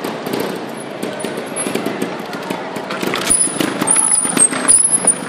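Trials motorcycle descending stone stairs: a rapid series of knocks as the wheels drop from step to step, louder and denser in the second half, with short high squeals near the end.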